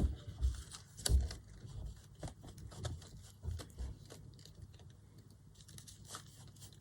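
Scattered light knocks, clicks and paper rustles as a hole is made through a stack of notebook pages on a work surface, the loudest knock about a second in.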